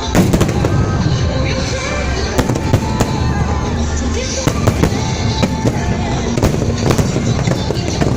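Aerial fireworks going off in rapid succession: a continuous low rumble of bursts with sharp cracks throughout, with music playing alongside.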